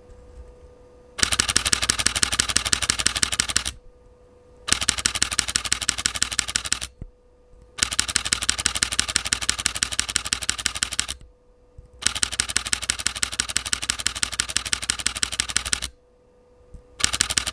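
Canon EOS R8 shutter firing in high-speed continuous bursts: rapid, evenly spaced clicking in five runs of about two to four seconds each, with short pauses between them.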